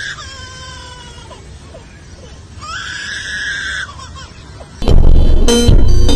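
An animal screaming: two long, shrill, high-pitched calls, the first sliding down in pitch, the second held steady, then loud music cuts in near the end.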